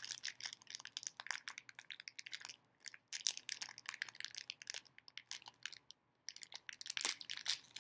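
Crinkling and tearing of a thin plastic wrapper being pulled open by hand: a rapid string of crackles and clicks, broken by two short pauses.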